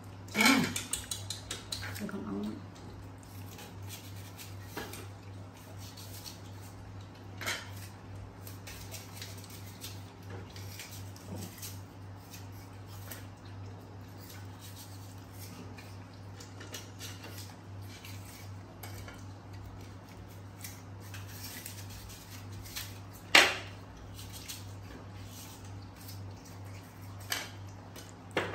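Scattered clicks and knocks of a knife and plastic plates being handled on a wooden floor while apples are cut up and eaten, with one sharp knock about 23 seconds in that is the loudest. A short voice-like sound comes in the first two seconds, and a steady low hum runs underneath.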